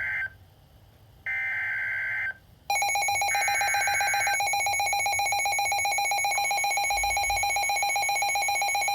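Emergency Alert System data bursts from a NOAA Weather Radio broadcast: buzzy digital tones about a second long, with a second of silence between them. About three seconds in, a Midland WR120 weather radio's alarm comes on, a loud, rapidly pulsing beep that drowns out the last burst. It marks the radio activating for an incoming severe thunderstorm warning.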